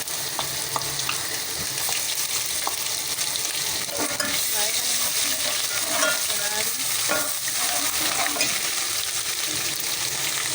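Onions and garlic-ginger paste sizzling steadily in hot oil in a pot while being stirred, with a few spoon taps and squeaky scrapes against the pot.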